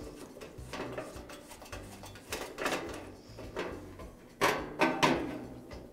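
Retaining ring being worked off a Weber gas grill's igniter module and the module drawn out from behind the metal control panel: a run of small scrapes, clicks and rattles, with two louder clacks about half a second apart near the end.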